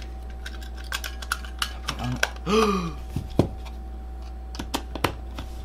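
Scattered light clicks and taps of small plastic parts being handled and pressed together as a cheap action camera's casing is reassembled. A brief wordless vocal sound comes about halfway through, over a steady low hum.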